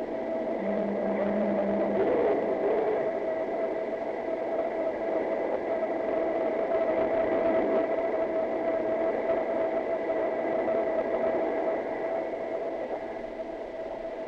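Machinery running with a steady whir and a constant hum, unchanging in level, with a short low tone added about half a second to two seconds in.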